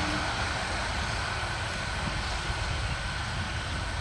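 Intercity passenger train running along the track away from the listener: a steady rumble of wheels on rails that slowly fades.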